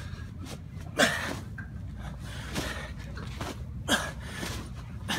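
A man breathing hard and exhaling forcefully under heavy exertion during sandbag clean squats, with two loud gasping exhales about three seconds apart and quieter breathing between.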